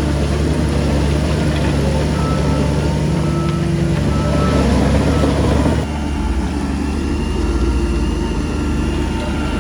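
Heavy diesel engine of earthmoving machinery running steadily with a deep rumble, easing off slightly about six seconds in.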